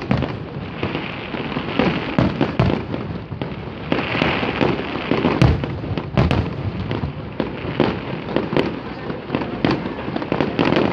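Fireworks display going off: a rapid, continuous run of bangs and crackling, many shells bursting close together.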